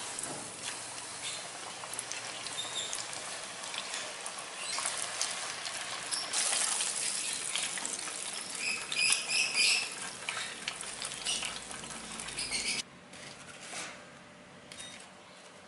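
Chicken frying in hot oil in a pan, a steady sizzle with crackles and some stirring. Around the middle it grows louder, with a few short squeaky chirps, then cuts off suddenly about 13 seconds in.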